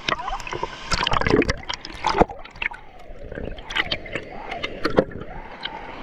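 Water splashing and sloshing around a camera held at the surface while swimming, with repeated sharp splashes, the loudest about two seconds in and again near five seconds.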